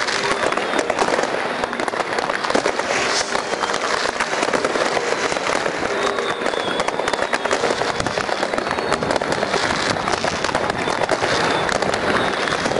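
New Year's Eve fireworks and firecrackers going off by the dozen all at once: a steady, dense crackle of overlapping pops and bangs that never lets up.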